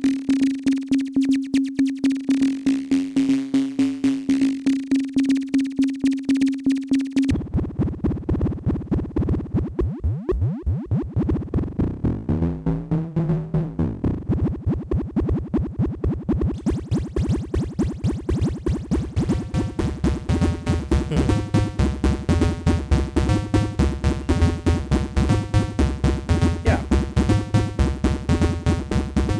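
Northern Light Modular h8B 8-bit synth voice, a digital module based on Mutable Instruments Edges, playing 8-bit tones in a fast, even pulse while being frequency-modulated from an external source. About seven seconds in the pitch drops and the tone turns buzzier with wobbling sweeps, and from around twenty seconds it grows denser.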